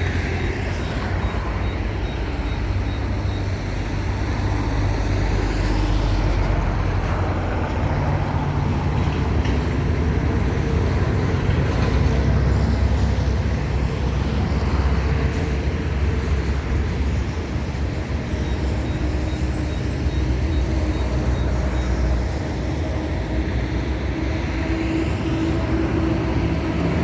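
Road traffic with heavy vehicles: trucks, buses and cars running past with a steady low engine hum.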